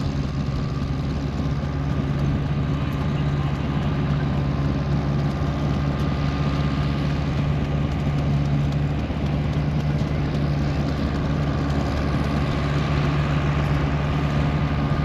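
Vintage farm tractor's diesel engine running steadily, a constant low hum.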